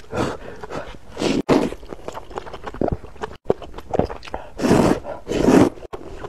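A person slurping noodles, in several loud, noisy sucks, with the two loudest close together near the end. Wet chewing and small mouth clicks fall between them.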